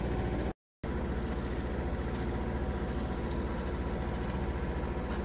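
Sailboat's inboard engine running steadily under way in calm water, a low, even drone with a fine regular beat. The sound cuts out completely for a moment about half a second in, then the same drone resumes.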